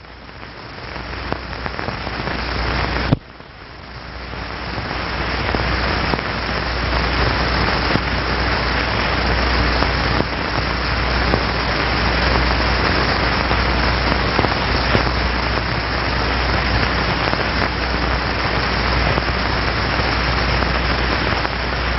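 Rushing-wind sound effect that swells as the speed builds, breaks off about three seconds in, then rises again to a steady rush over a low rumble.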